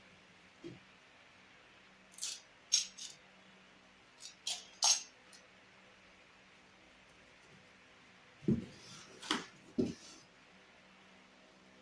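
Packing noises: short rustles and clatters as packing materials and cordless drills are handled, with a couple of dull knocks near the end.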